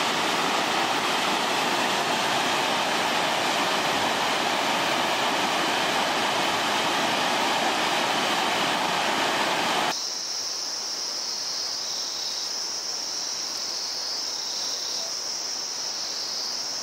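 Mountain river rapids rushing steadily over boulders. About ten seconds in, this cuts to a high, steady insect chorus that pulses gently.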